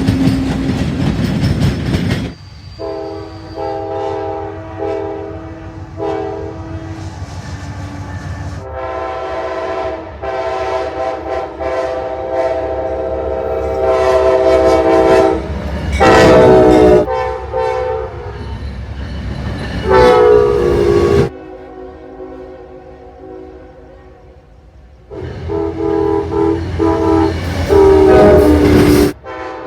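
Locomotive air horns sounding chords of several notes at once, in a string of separate clips that cut abruptly from one to the next. Some blasts are short and repeated, others long and held, and a few segments carry the low rumble of a passing train under the horn.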